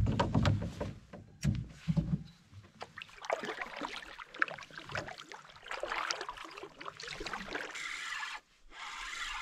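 Canoe paddling: heavy knocks at first, then a run of clicks and scraping as the paddle strokes the water and bumps the canoe's wooden gunwales.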